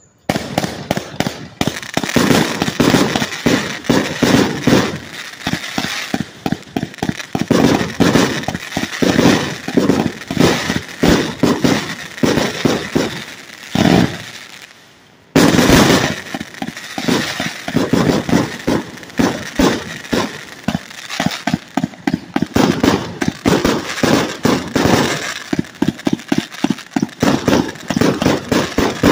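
Consumer fireworks cake going off: a rapid, continuous string of shots and crackling bursts. It starts suddenly, drops off briefly about halfway through, then fires rapidly again.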